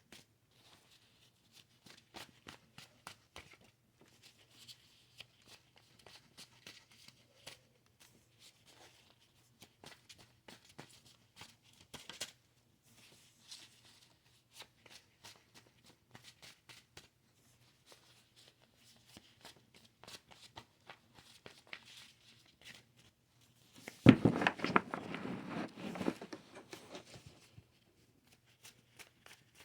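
Tarot cards being handled: quiet, irregular clicks and rustles, then a louder burst of card shuffling about 24 seconds in that lasts a few seconds.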